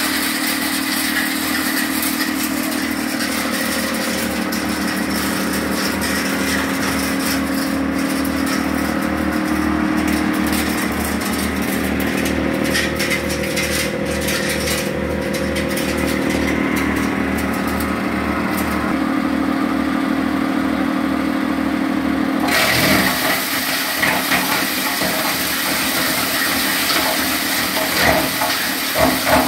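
Wood crusher machine running with a steady, even low mechanical beat; about 22 seconds in the sound changes abruptly, the beat stops and a noisier, uneven churning takes over.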